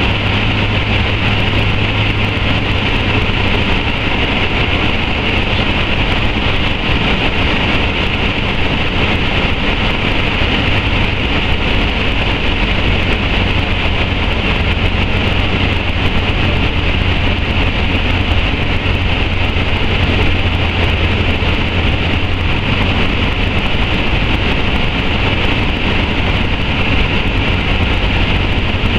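Light aircraft's engine and spinning propeller droning steadily in flight, with air rushing past, heard from inside the cockpit.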